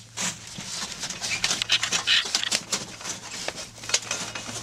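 Hands working a rolled titanium stovepipe, sliding a retaining ring along the thin metal sheet. Irregular scraping, light metallic ticks and rustling of dry leaves.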